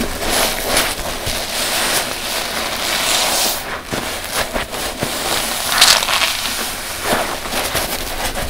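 A large soft sponge soaked with dish soap being squeezed and kneaded by hand in thick suds: wet squelching and the crackle of foam bubbles bursting, swelling and easing with each squeeze.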